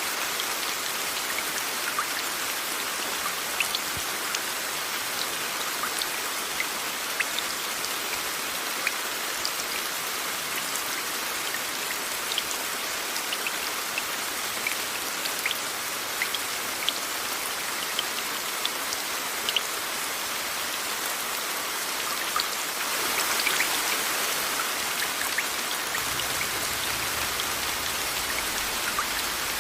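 Steady rain blended with white noise: an even hiss dotted with sharp raindrop ticks. The rain swells briefly about three-quarters of the way through, and a low rumble joins in near the end.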